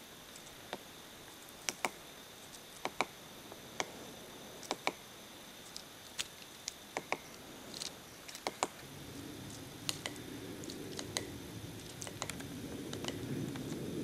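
Black-backed woodpecker pecking at the bark of a tree trunk: irregular sharp taps, singly or in pairs, a second or so apart. A low rumbling noise comes in about halfway through and grows.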